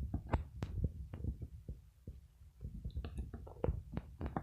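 Slime mixture of glue and liquid detergent being stirred in a bowl, making irregular clicks, knocks and wet squelches over a low rumble.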